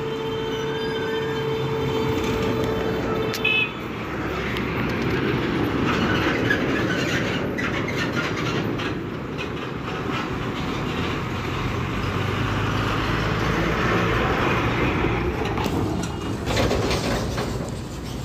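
Heavy diesel goods trucks, Tata trucks among them, passing one after another close by: a steady engine drone with tyre noise on the road. There is a brief louder sound about three and a half seconds in, and a run of knocks and clatter near the end as a container trailer goes past.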